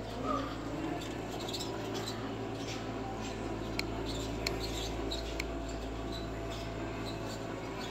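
Big-box store background: a steady low hum with a few faint steady tones, dotted with short high squeaks and clicks, and three sharp ticks a little under four, about four and a half, and about five and a half seconds in.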